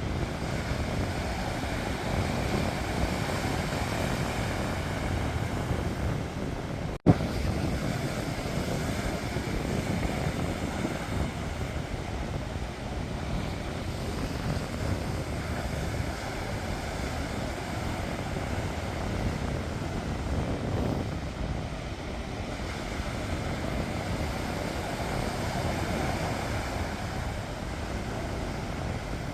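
Sea waves washing onto the shore in a steady rush that swells and eases slowly, with a low rumble that may be partly wind on the microphone. About seven seconds in the sound cuts out for an instant and comes back with a sharp click.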